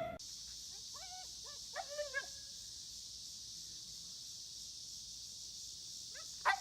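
A dog giving a few short, high whimpering cries, faint, over a steady hiss: a cluster about one to two seconds in and another just before the end.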